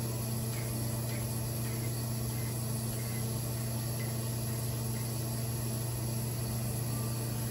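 Crystal microdermabrasion machine running steadily, its vacuum pump giving a constant low hum with a hiss as the handpiece is passed over the skin.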